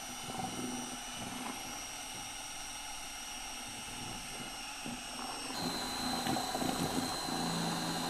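Cordless drill running steadily with a paddle mixer, churning two-part epoxy resin and hardener in a bucket. Its motor whine drops in pitch and grows a little louder about five and a half seconds in.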